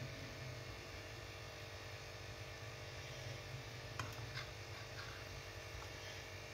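Steady low hum, with a faint click about four seconds in and two softer ticks soon after: a kitchen knife cutting through a crepe roll and touching the plate.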